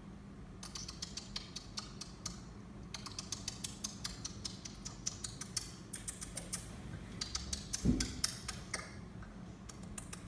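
Rapid, irregular light clicking and tapping in bursts, with a dull thump about eight seconds in.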